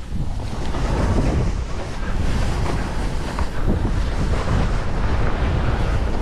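Wind rushing over the microphone of a skier's body-worn camera during a downhill run, a loud, uneven low rumble that surges and eases, mixed with the hiss of skis sliding over snow.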